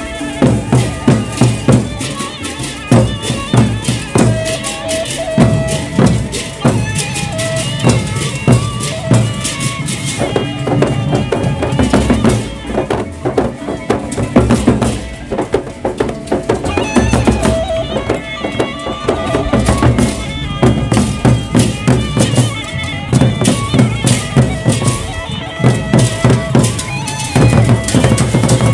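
Gendang beleq ensemble playing: large Sasak drums struck in fast, dense strokes with cymbals and gongs, over a short melodic figure that repeats.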